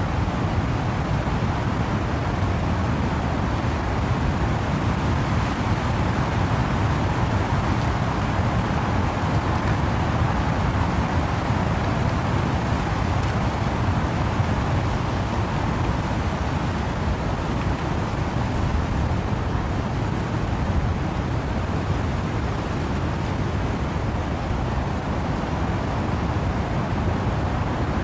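Wind and steady rain through trees: a dense, unbroken rush with a heavy low rumble.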